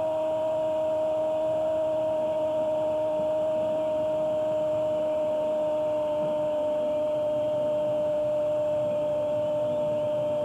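Sports commentator's long, drawn-out goal cry ("gooool") held at one high pitch over stadium crowd noise, celebrating a goal.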